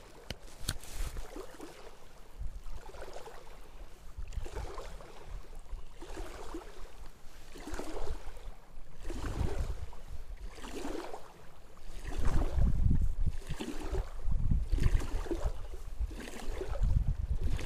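Wind rumbling on the microphone, much stronger from about twelve seconds in, over a soft swish that comes back every second or so from small waves lapping at the river bank.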